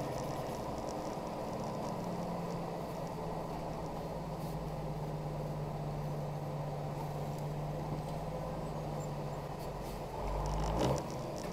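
Truck engine and road noise as heard from inside the cab: a steady drone under a held engine tone. About ten seconds in a louder low rumble swells for under a second and cuts off suddenly.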